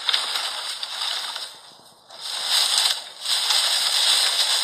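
Dry branches and brush rustling and crackling as a dog pushes through a brush pile, in stretches with a short pause about two seconds in.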